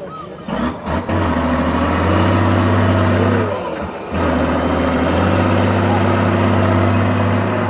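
A competition truck's diesel engine running hard under load, with a high whine rising over the first couple of seconds. The engine briefly drops off about three and a half seconds in, then picks up again.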